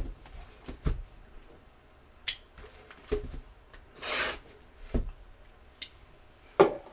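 A box of trading card packs being opened and handled: short rasping tears and rustles of wrapper, the longest about four seconds in, between a few light knocks on the table.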